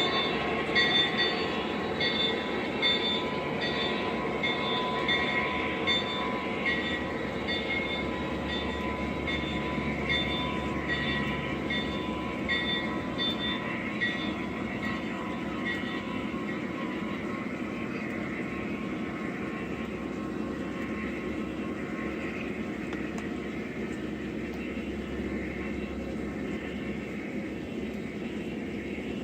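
O scale three-rail Lionel model train running on track, with a steady hum and wheels clicking over the rails. The clicks fade out about halfway through and the sound slowly gets quieter.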